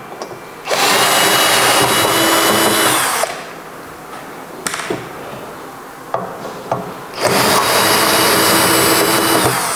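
Cordless drill-driver running, backing screws out of a wall-mount inverter's metal cover. It runs in two steady spells of about two and a half seconds each, near the start and near the end, with a few clicks of the tool and screws in between.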